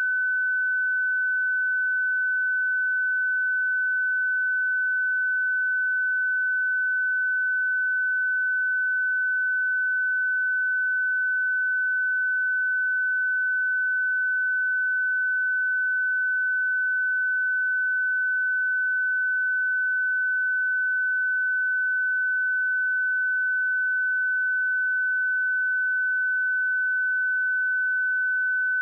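A pure 1508 Hz sine-wave test tone, held steady at one pitch and level throughout.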